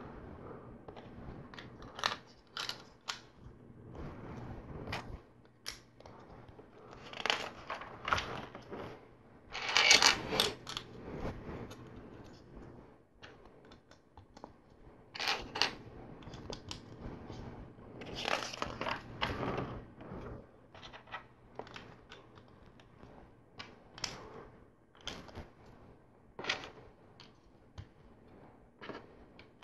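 Plastic LEGO bricks and plates clicking and rattling as they are handled and pressed onto the model: an irregular run of small sharp clicks, with several busier bursts of clicking.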